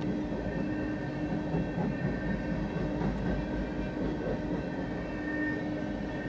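Freight train of coal hopper cars rolling steadily past a grade crossing: continuous rumble and rattle of wheels on the rails, with a steady high tone over it. Heard from inside a car.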